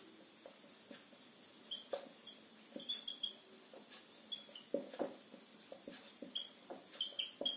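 Whiteboard marker squeaking and tapping across the board as words are written: a faint run of short, irregular squeaks and ticks.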